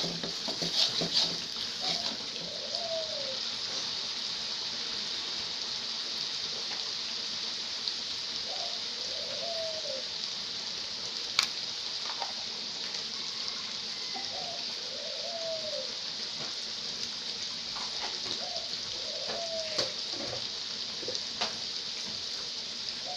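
Chili paste frying in oil in a black carbon-steel wok: a steady sizzle, with a metal spatula scraping and knocking against the wok in the first two seconds. A short rising-and-falling note repeats about every five seconds.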